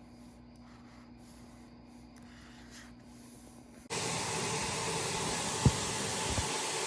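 Faint room sound, then a steady, loud rushing hiss starts suddenly about four seconds in, with a single sharp knock near the end.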